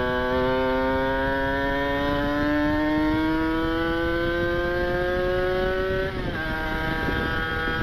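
Kawasaki Ninja RR 150cc two-stroke single running through a galvanized ABRT expansion chamber and Arrow silencer, its note climbing steadily as it accelerates. About six seconds in the pitch falls sharply, then holds steady.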